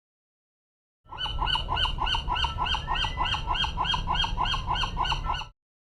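An animal call: a fast, even run of short rising-and-falling notes, about four a second, lasting about four seconds over a low background rumble, then cutting off abruptly.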